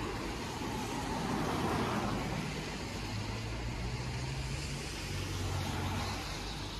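Road traffic on a rain-soaked street: cars pass with tyres hissing on the wet tarmac over a low engine hum. The hiss swells as a car goes by about a second or two in and again near the end.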